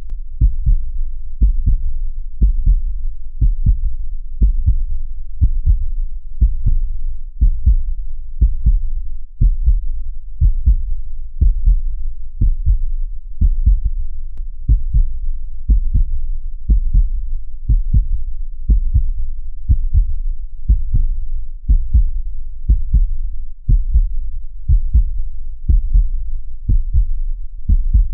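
A steady heartbeat: an unbroken rhythm of low, soft thumps, about two a second.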